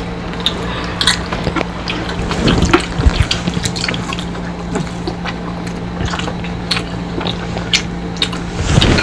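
Close-miked eating sounds from people eating crispy fried tilapia with their fingers: wet chewing and lip smacks with many short sharp clicks, over a steady low hum.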